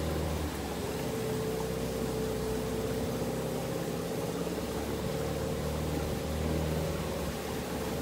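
Outboard motor of a small wooden longboat running steadily, a continuous engine drone with a slightly wavering pitch.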